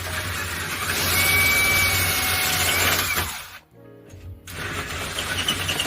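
An electric power tool's motor runs, with a steady high whine, for about three and a half seconds. It stops briefly, then runs again for about two seconds.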